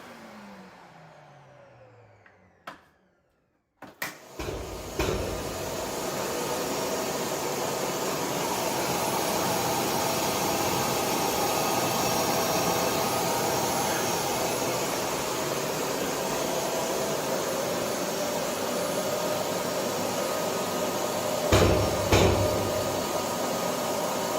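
Makita VC4210M vacuum cleaner's motor whining down to a stop, a click, then the vacuum switched back on and running steadily at full power. Two short knocks come near the end.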